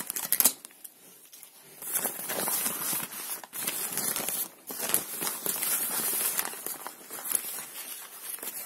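Packing paper rustling and crinkling as hands unfold it, in a busy run of crackles with a short lull about a second in.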